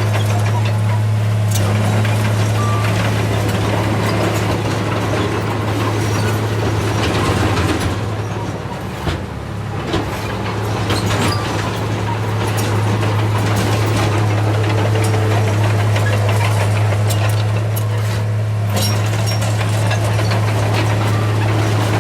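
Heavy diesel earthmoving machinery running steadily under load, a constant low engine drone with frequent clanks and knocks over a rumbling noise that eases briefly about halfway through.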